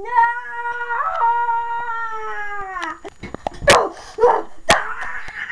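A long wailing howl held on one slightly wavering note, falling away about three seconds in, followed by a few short breathy bursts and knocks.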